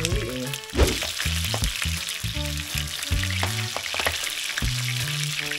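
Food frying, a steady sizzle with a few light knocks, frying crisp and well toasted. Background music with a slow bass line plays underneath.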